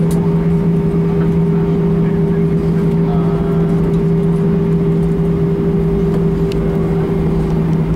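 Cabin noise of an Airbus A320 taxiing after landing: a steady loud hum with two held tones over a low rumble from the aircraft rolling along the taxiway.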